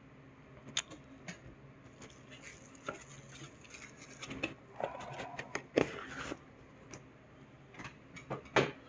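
Hands handling rigid plastic card holders and a cardboard trading-card box: scattered light clicks and taps, with a short rub of cardboard sliding about five seconds in as the box is opened.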